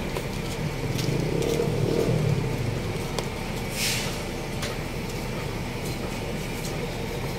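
Street traffic: a motor vehicle's engine swells as it passes about one to two seconds in, over a steady low hum, with a short hiss about four seconds in.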